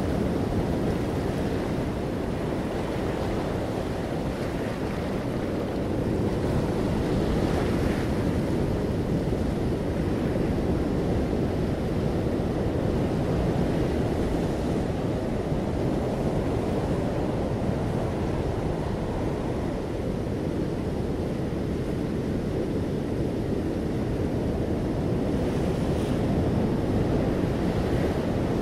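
A steady low rushing noise with no distinct events.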